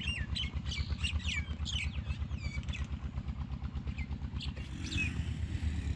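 An engine running steadily with a quick, even low thumping, with birds chirping over it, most in the first half and again briefly near the end.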